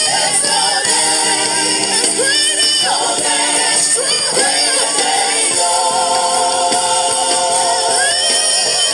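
Christian worship music: singing voices over instrumental accompaniment, with long held notes in the second half.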